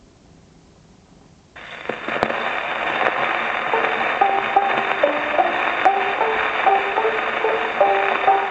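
Victrola acoustic gramophone playing a 78 rpm shellac record: the steel needle is set down about one and a half seconds in, starting loud surface hiss and crackle. About two seconds later the recording's instrumental introduction begins in short stepped notes, heard through the hiss.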